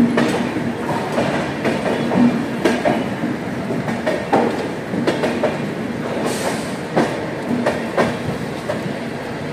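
Moving express train heard from on board a sleeper-class coach: wheels clattering over the rail joints with irregular sharp knocks over a steady low hum, and a brief hiss about six seconds in.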